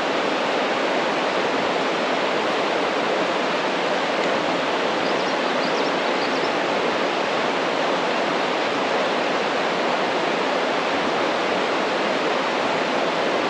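River rapids and small waterfalls rushing, a steady, pretty loud wash of water.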